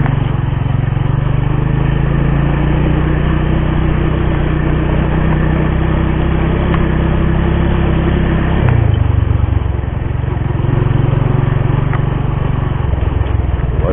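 Vehicle engine running steadily while travelling along the road, its note changing to a lower pitch about nine seconds in.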